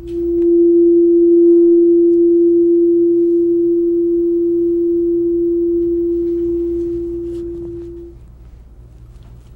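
Tuning fork tuned to F, the heart-chakra fork of a seven-fork chakra set, struck once and ringing one pure steady tone, with faint higher overtones just after the strike. The tone slowly fades and dies away about eight seconds in.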